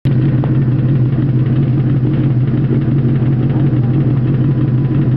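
2001 Ford Mustang GT's 4.6-litre V8 running steadily at idle with a connecting-rod knock, the sign of a worn rod bearing.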